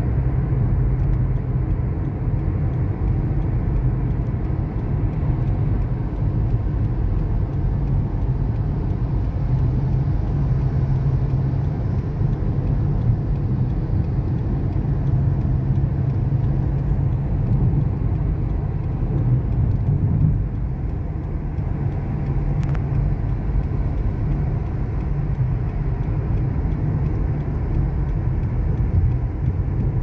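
Car driving on the road: a steady low rumble of engine and tyre noise.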